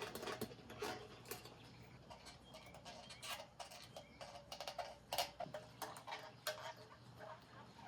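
Faint, irregular small ticks and scratches of hand-cleaning the lens of a No. 2A Kodak Brownie camera, swab and fingers working against the lens and its metal and wooden parts.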